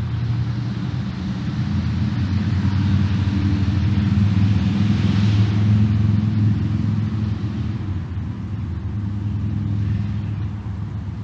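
Low rumble of a motor vehicle, growing louder to a peak about five seconds in and then easing off.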